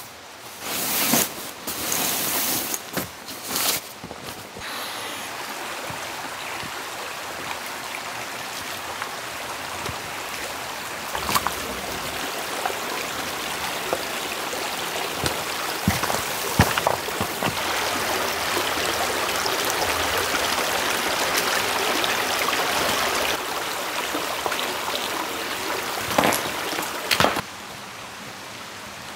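Rustling of a stuff sack being handled for the first few seconds, then a shallow rocky stream running steadily, with a few sharp knocks of river stones being lifted out of it. The stream sound drops off sharply near the end.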